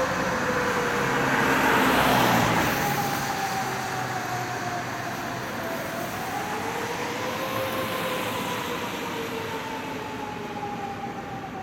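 Fire engine's siren wailing in slow rises and falls while the truck drives past on an emergency run, its road noise loudest about two seconds in and then fading away.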